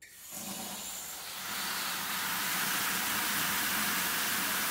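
Water spraying from a fireman's nozzle on a garden-hose bucket fill into a plastic bucket, turned on at the start and building to a steady hiss within about a second and a half.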